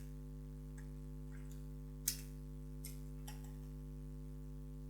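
A marker drawing on a whiteboard: about five short, scratchy strokes, the sharpest about two seconds in, over a steady electrical hum.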